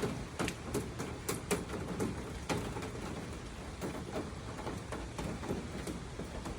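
Rain falling, with heavy drops tapping irregularly, several a second, on a surface close by.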